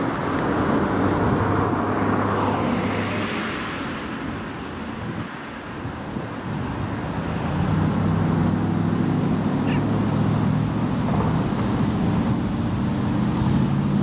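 Road traffic: a vehicle passes with a falling hiss in the first few seconds, then a steady low engine drone sets in about halfway through.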